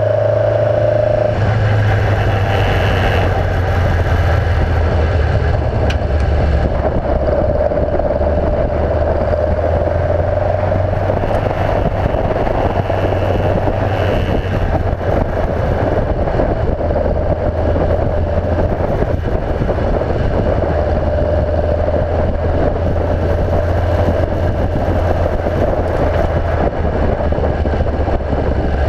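Alfa Romeo 1490 flat-four boxer engine of a Group C race car, heard onboard, running steadily at low revs while the car rolls slowly, with a steady whine above the engine note.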